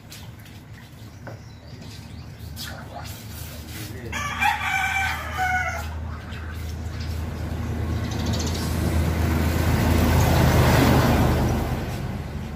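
A rooster crows about four seconds in, one call in two parts. A motor vehicle then comes closer and passes by, loudest about ten seconds in and fading towards the end.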